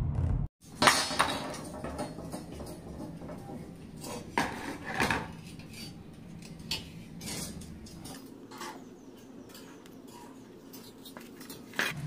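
Steel bars handled on a wooden board: scattered metallic clinks and knocks, the sharpest about a second in and another cluster around four to five seconds in. The last beat of intro music ends right at the start.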